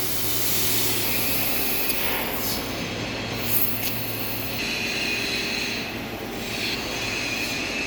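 Sheet-metal laser cutting machine running: a steady mechanical hiss with a low hum, and a faint high whine that comes and goes.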